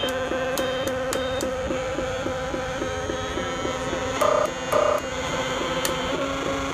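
Several homemade electronic synthesizers played together through small Fender practice amplifiers: a steady, buzzy drone with a pulsing pattern about three or four times a second. Two short, louder, higher beeps come a little over four seconds in.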